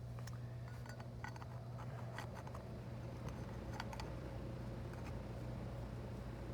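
Scattered small clicks and clinks of metal and glass parts being handled as an MR16 halogen bulb is fitted into a low-voltage landscape uplight fixture, over a steady low hum.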